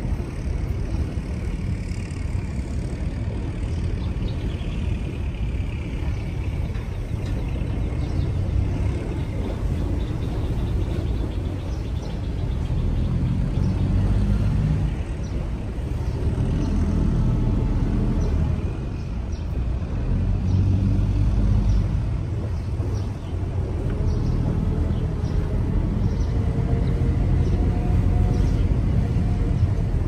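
Low outdoor rumble that swells and eases every few seconds.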